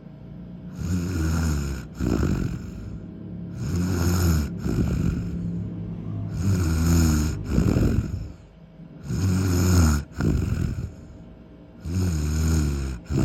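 A person passed out asleep and snoring in a steady rhythm: a low snore followed by a short sharp breath, repeating about every two and a half seconds.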